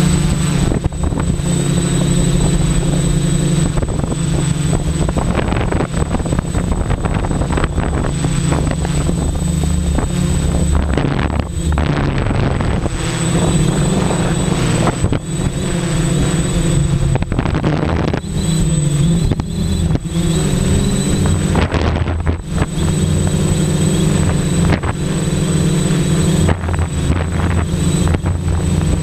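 XAircraft Super X quadcopter's electric motors and propellers humming, heard close from the camera on board, the pitch wavering as the motor speeds shift. Gusts of wind buffet the microphone, and a thin high whine sits underneath.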